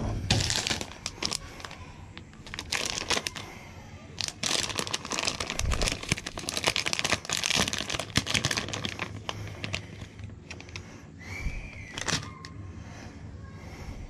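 A thin plastic soft-bait package is being handled and pulled open by hand, crinkling and crackling in spells with sharp little clicks, loudest in the middle.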